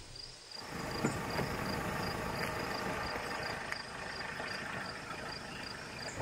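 Crickets chirping in a steady pulse, a few chirps a second, over a low steady rumble, with a faint click about a second in.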